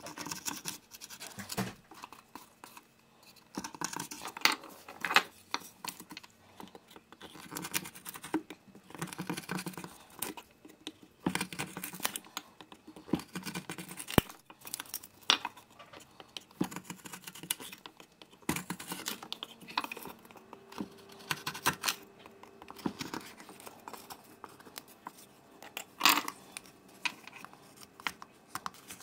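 A knife carving a wooden spoon by hand, taking shavings in short irregular scraping strokes. A few sharp knocks are heard, the loudest near the end.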